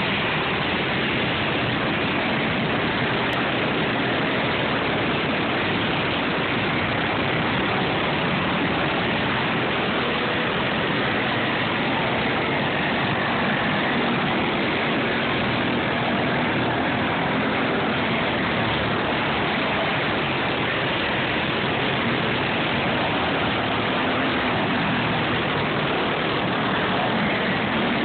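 Several racing go-kart engines running at speed on a dirt track, a steady dense buzz with faint pitches wavering as the karts come round.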